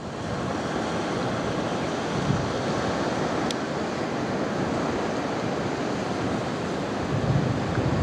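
Steady hiss of surf washing on a beach, with wind rumbling on the microphone and gusting harder near the end. A single brief, faint high tick about three and a half seconds in.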